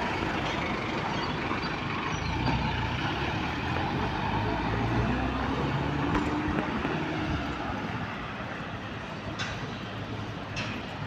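Road traffic: a van's engine running as it drives past close by, over steady traffic noise that eases off after about eight seconds. A couple of light clicks near the end.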